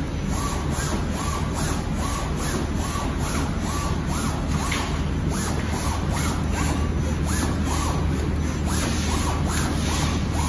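Garment pattern plotter's inkjet print-head carriage shuttling along its rail, a short motor whine with each stroke repeating a little under twice a second over a steady low hum.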